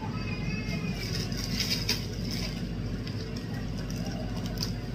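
Plastic bag crinkling, with small handling clicks, over a steady low hum. The crinkling is thickest between about one and a half and two seconds in.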